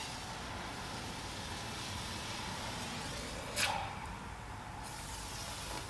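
Zippo stormproof match burning with a steady hiss, with a short, sharp hissing burst about three and a half seconds in.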